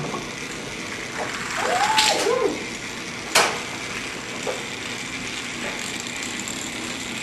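Homemade domino chain reaction running: a wooden ball finishing its roll down a wooden ramp track into the dominoes, which topple with light clicking. A short rising-and-falling tone about two seconds in and a sharp knock about a second later stand out over a steady hiss.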